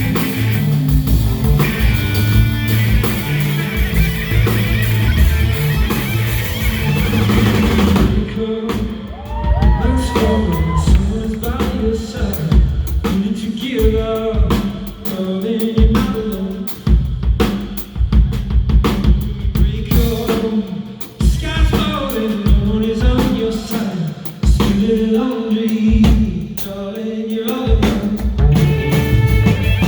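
A live band playing a song with drum kit. The full band plays for the first several seconds, then thins to drums under a wavering pitched melody line, and the full sound builds back near the end.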